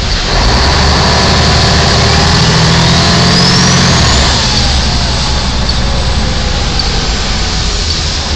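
A fire ladder truck's diesel engine running under load, heard from inside the cab, over a broad, steady rush of tyre and water noise as it drives through floodwater. A faint rising whine comes in about two seconds in, and the engine note eases about four seconds in.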